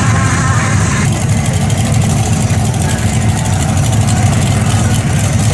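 Vehicle engine running, a steady low rumble.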